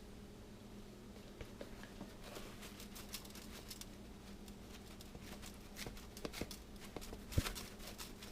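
A seasoning shaker being shaken over squirrel legs in a baking dish: scattered light clicks and pattering taps, mostly from about two seconds in, with one sharper knock near the end, over a steady low hum.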